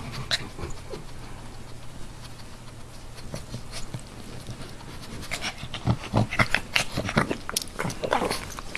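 A pug breathing noisily and snuffling, quiet at first, then a run of short irregular sniffs and snorts over the last few seconds.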